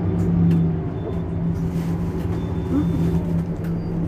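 Mercedes-Benz Citaro C2 Hybrid city bus standing at a stop with its engine idling: a steady low hum that holds the same pitch throughout.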